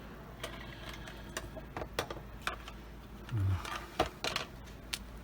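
Scattered small clicks and taps of plastic push clips being handled while fitting a car's roof headliner back up. There is a brief low hum from a man about halfway through.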